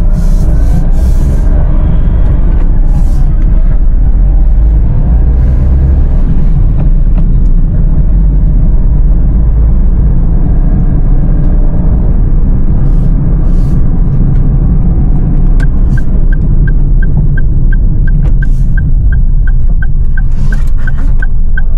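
Steady low rumble of a Toyota Agya G 1.2 manual driving, heard from inside the cabin as engine and road noise. About three-quarters of the way through, an even ticking starts at about two ticks a second, typical of a turn-signal indicator.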